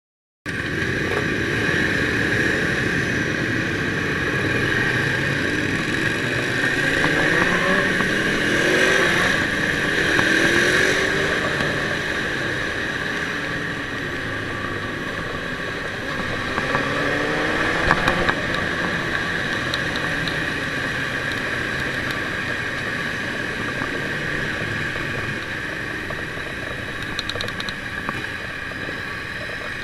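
Ducati motorcycle engine running under way, rising in pitch as it accelerates twice, over a steady rush of riding noise.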